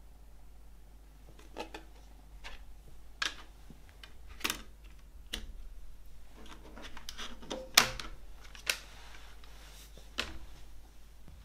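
A compact disc set into a plastic CD jewel case and the case handled on a wooden table: a string of sharp plastic clicks and taps, the loudest about three-quarters of the way through, with light rustling of handling between them.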